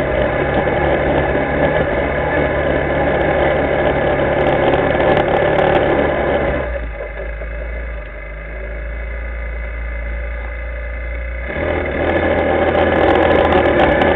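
Linhai ATV engine running as the quad is ridden along a snowy track. It drops quieter and lower for about five seconds in the middle, then picks back up.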